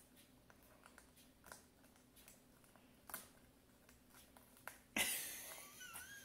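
Faint light clicks and scratches of fingers picking at the cracked shell of a hard-boiled egg in an egg cup. About five seconds in comes a sudden, louder rustling noise that fades over a second, with a brief high gliding squeak in it.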